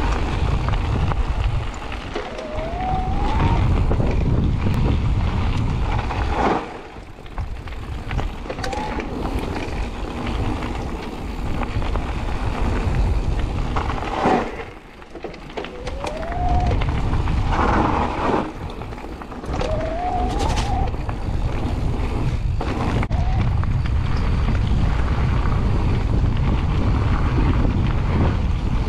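Mountain bike tyres rolling and rumbling over a gravel trail, with wind rushing over the handlebar camera's microphone. A short rising whine comes through four times, and the noise drops away briefly twice.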